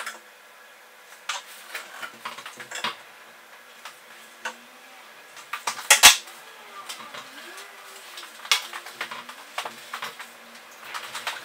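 Scattered light knocks and clatter of a spirit level and hand tools being handled and set down on wood, with one sharper clack about six seconds in.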